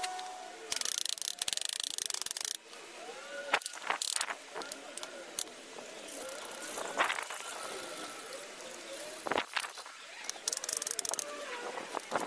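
Hand work on a concrete paver path: scattered sharp knocks and clicks, with two rattling, scraping bursts, one about a second in and one near the end.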